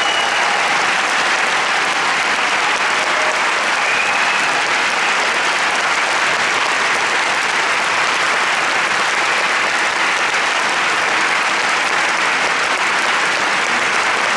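Concert audience applauding steadily after a song ends.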